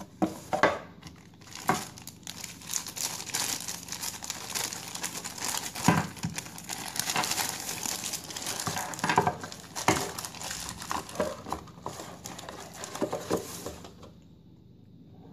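Plastic wrapping crinkling and crumpling as it is pulled off a pistol, with a few sharp knocks as things are handled and set down. It goes quiet about a second before the end.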